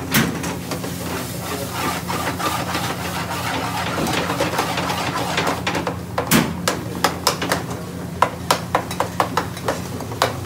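Metal spoon stirring and scraping grated onion in an aluminium frying pan on a gas burner, over a steady low kitchen hum. From about six seconds in, the spoon knocks sharply against the pan, roughly three taps a second.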